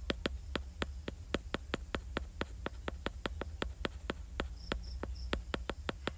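A stylus tip clicking rapidly on an iPad's glass screen, about five or six fairly even clicks a second, as a sketch is scrubbed out with the eraser tool.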